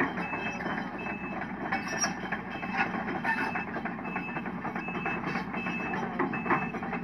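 Sumitomo SH130LF hydraulic excavator's diesel engine running under work, with a machine's travel or backup alarm beeping steadily about once every 0.7 seconds. Scattered sharp metallic clanks come through throughout.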